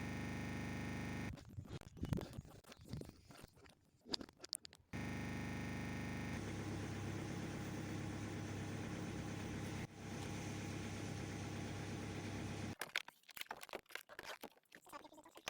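A steady mechanical hum that runs briefly, stops about a second in, then starts again near 5 s and runs until about 13 s, with irregular clicks and knocks of tool handling in the gaps.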